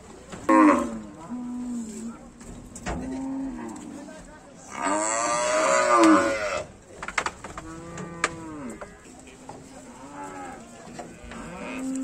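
Cattle mooing several times, with one long, loud moo about five seconds in. A few sharp knocks come between the calls.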